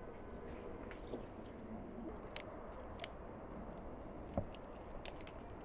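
Faint table sounds during tea: a few light, scattered clicks and taps of glasses and dishes over a low steady background hum.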